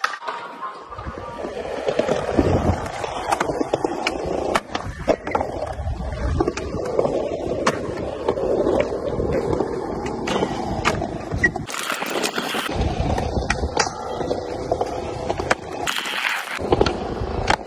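Skateboard wheels rolling on concrete, with sharp clacks from the board popping and landing throughout. The rolling drops out briefly twice, about two-thirds of the way through and near the end.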